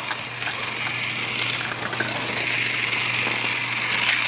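Small battery-powered toy car running along a flexible plastic track, its tiny electric motor and wheels giving a steady high whir.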